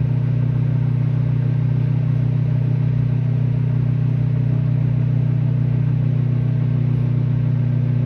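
Microwave oven running mid-cycle: a loud, steady low hum with an even whir over it.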